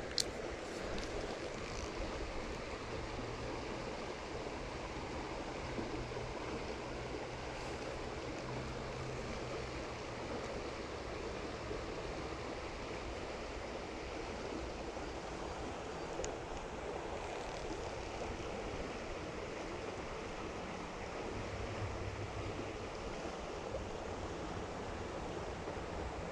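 Creek water rushing steadily over rapids. A faint low drone comes and goes beneath it.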